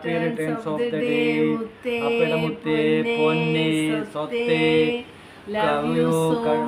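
Singing in long held notes that move in steps from one pitch to the next, with short breaks about two and five seconds in.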